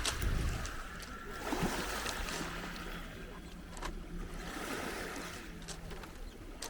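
Sea surf washing on the beach, with a steady low hum through the middle and a few sharp clicks.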